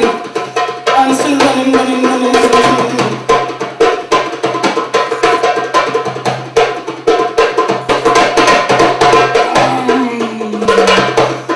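Music with fast, dense hand-drumming over a steady held drone, with low drum tones that slide downward in pitch about a second in and again near the end.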